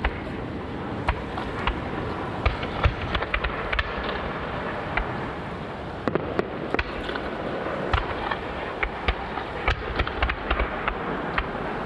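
Aerial fireworks bursting: many sharp cracks and pops at irregular intervals over a steady rushing background noise.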